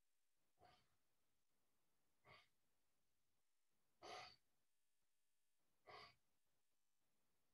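Faint, short exhalations from a person doing slow tai chi movements, four breaths about two seconds apart, the loudest about four seconds in.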